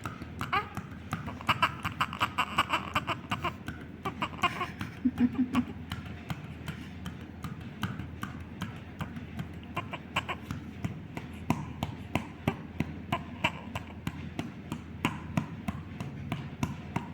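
Hand patting a newborn's back or chest in a steady run of soft slaps, a few a second, as part of a cough-and-cold baby massage to loosen phlegm.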